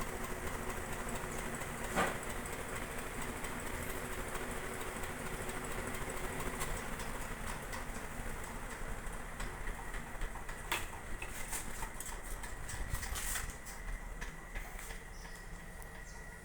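56-inch industrial ceiling fan running, its motor giving a steady low hum, with a few sharp clicks and ticks; the hum drops slightly in level near the end.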